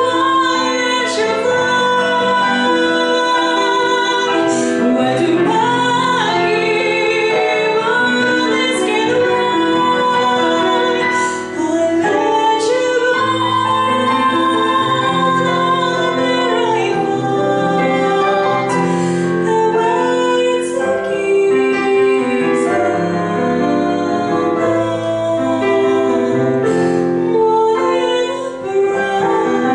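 A woman sings with long held notes into a microphone, accompanied by chords on a digital piano.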